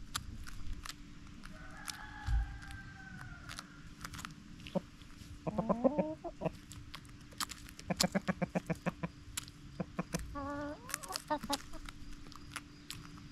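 Backyard hens clucking while they feed: one drawn-out, slightly falling call about two seconds in, then three bursts of quick, rapid clucks. Short sharp clicks of beaks pecking at food come between the calls.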